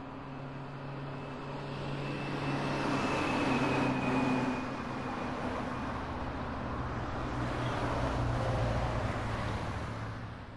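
Street traffic: a steady low engine hum under road noise that swells and eases twice.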